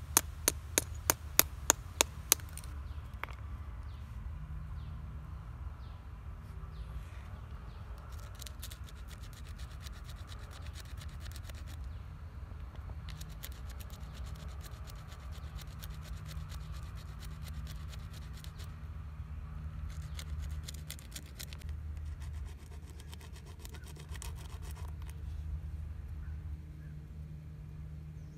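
A hand-held stone knocks a small white piece on a boulder, about three sharp knocks a second, for the first two seconds or so. Then the piece is rubbed and ground against the rock in runs of fine, scratchy rasping strokes.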